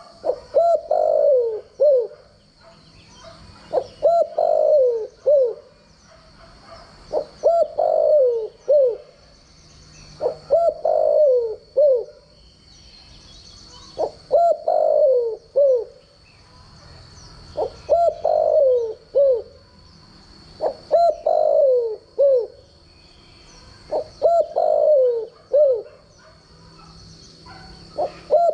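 Spotted dove cooing: a phrase of a short opening note followed by two or three low, falling coos, repeated about every three and a half seconds.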